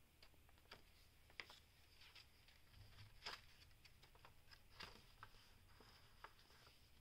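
Near silence with faint, scattered paper rustles and soft taps as the pages of a handmade paper junk journal are turned by hand. The clearest rustles come about three seconds in and just before five seconds.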